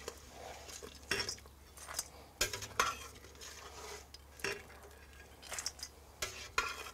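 Perforated metal ladle clinking and scraping against the inside of a stainless steel stockpot, scooping boiled crayfish out of the water, with a sharp knock every second or so.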